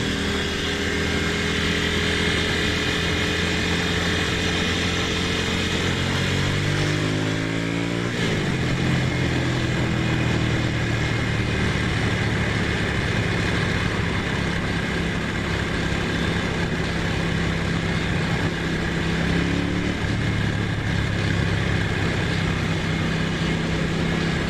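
Ducati Monster's V-twin engine pulling under throttle. Its pitch climbs, faster towards the end, then drops sharply about eight seconds in as it shifts up, and it holds a steady cruise from there. A steady rush of wind and road noise runs underneath.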